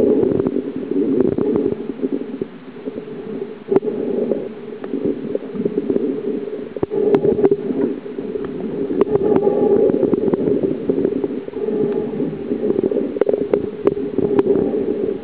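Muffled underwater noise: a steady low rumble that swells and fades over a few seconds, with scattered sharp clicks.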